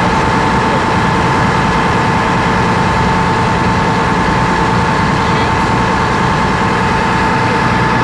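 A boat's engine running steadily under way: a constant low drone with a steady high whine over it.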